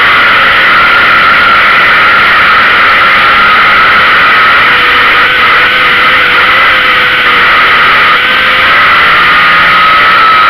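Street stock race car's engine running hard at racing speed on a dirt oval, loud and steady, heard close from the car's own rear deck. The pitch stays level, with a slight dip in loudness about seven to eight seconds in.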